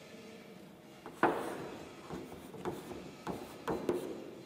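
Writing by hand: a sharp tap about a second in, then lighter taps and strokes of the pen or chalk.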